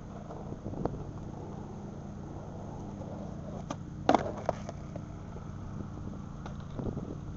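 Skateboard tail snapping on asphalt for a switch frontside heelflip. About half a second later comes a loud clatter as the board and rider come down, followed by a couple of smaller knocks of the board on the asphalt: the trick is not landed and the skater falls.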